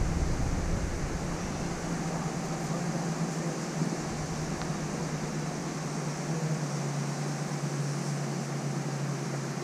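Steady low mechanical hum, like a motor or fan running, over an even outdoor hiss.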